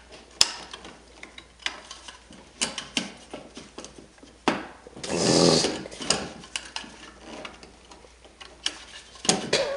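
Hand tools working at a stuck electrical device box: irregular sharp clicks and knocks of metal being pried and tapped, with a longer rasp about five seconds in.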